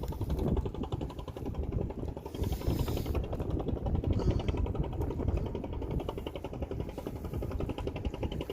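A small boat's engine running steadily, with a fast, even pulse. A brief hiss rises over it about two and a half seconds in.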